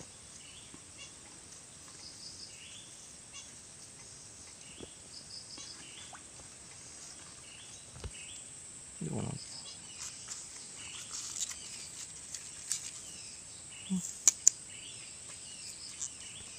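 Rural outdoor ambience: birds chirping in short repeated calls over a steady high insect hiss. About nine seconds in there is a brief low voice-like sound, and a little after fourteen seconds two sharp clicks in quick succession, the loudest sounds here.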